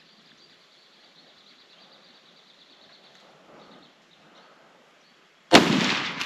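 A faint, high, pulsing trill, then near the end a sudden loud gunshot that dies away over about a second.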